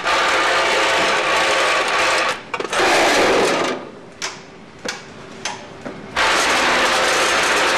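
Tridyne F-206 high-speed packaging machine running, a dense rapid mechanical clatter of its indexing and filling mechanisms. A few seconds in the clatter breaks off after a brief louder rush, leaving a few separate clicks, then starts up again near the end.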